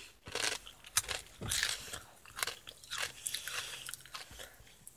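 A person chewing crunchy Fritos corn chips with the mouth close to the microphone: a run of irregular crunches.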